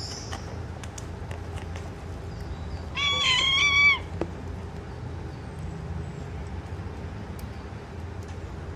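A cat meows once, a single call lasting about a second, roughly three seconds in.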